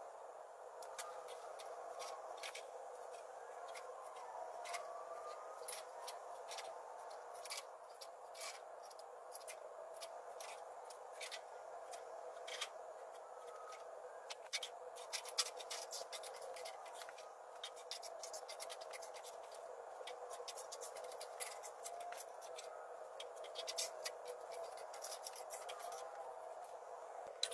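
A marker scratching out layout lines on steel plates along a metal straightedge: many short, sharp scrapes and clicks, some of them the straightedge being set down on the plate. A faint steady hum lies under it.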